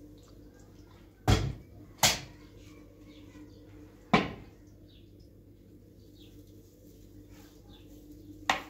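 Four sharp knocks at uneven intervals, each dying away quickly.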